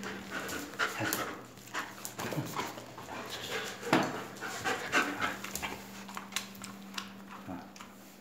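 White Swiss Shepherd dog panting, with a few sharp clicks among the breaths.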